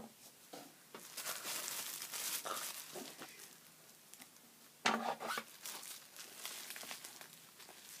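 Packing material being unwrapped by hand: irregular crinkling and rustling, with a louder sharp crackle just before the fifth second.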